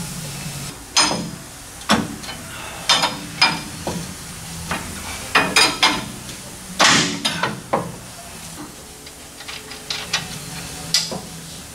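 Hand tools clinking and knocking against the steel front suspension of a car on a lift: a run of sharp irregular metal clanks and scrapes, busiest around the middle.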